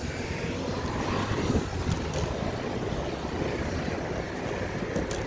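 Wind buffeting the microphone of a handheld phone while riding a bicycle: a steady, low rumbling rush.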